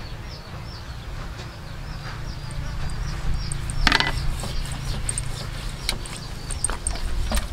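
Hands handling a whole fish in a metal tray, making a few sharp clicks and taps, the loudest about four seconds in, over a low rumble. Short high chirps repeat several times a second in the background.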